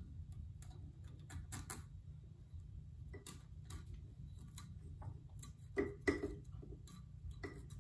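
Light clicks and taps of hands fitting paper cylinder base gaskets over the studs of a Rotax 377 crankcase and pressing them flat. There are a few louder knocks about six seconds in, over a steady low hum.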